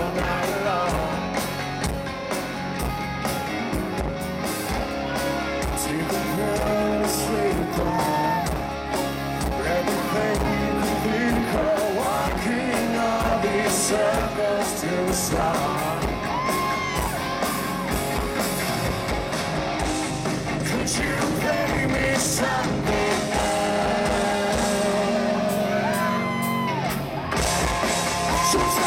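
Live rock band playing a song: a male lead singer over electric guitars, bass guitar and drums.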